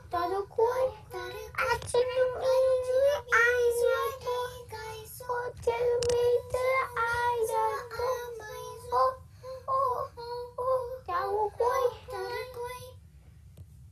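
A young boy singing solo, with several long held notes; the singing stops about a second before the end.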